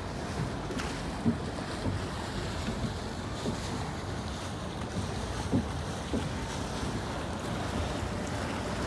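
Wind buffeting the microphone over choppy water washing against a gondola's hull, with a few short low thumps of waves slapping the boat.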